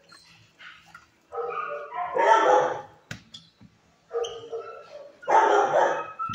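Shelter dog barking: two loud bouts, about two seconds and five seconds in, with quieter calls between.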